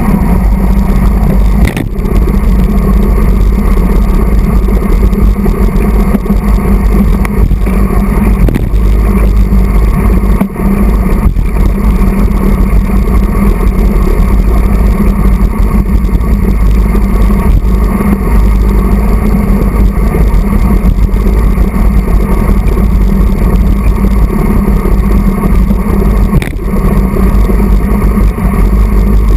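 Wind rushing over a handlebar-mounted camera's microphone on a road bike at race speed, a loud steady low rumble with a few brief dips.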